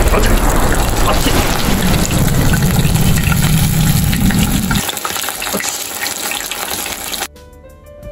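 Battered surf smelt (chika) deep-frying in hot oil in a stainless pot: a loud, steady sizzle and bubbling. About seven seconds in it cuts off suddenly and background music takes over.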